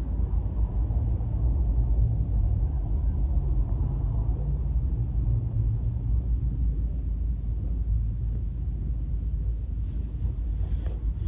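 A steady low rumble with a faint hum, and a brief hiss near the end.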